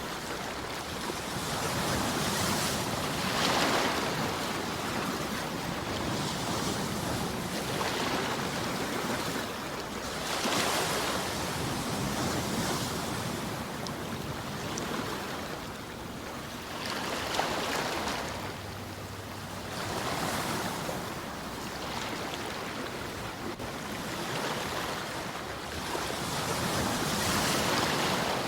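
Ocean waves breaking and washing ashore, each swell rising and falling away every few seconds over a constant hiss of surf.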